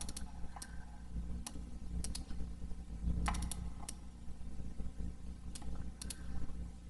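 Computer mouse clicking: scattered single clicks, a couple of quick double-clicks and a short run of three or four clicks a little past the middle, over a faint low steady hum.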